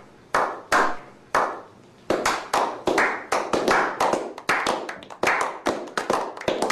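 A slow clap by a small group of men: about three single hand claps spaced over the first two seconds, then quickening into faster, steady clapping.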